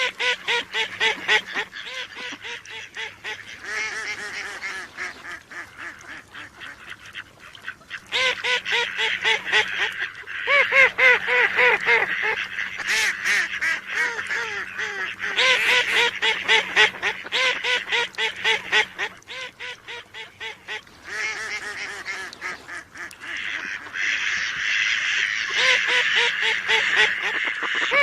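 Mallard ducks quacking in rapid, overlapping runs of calls that come in bursts of a few seconds with short lulls between.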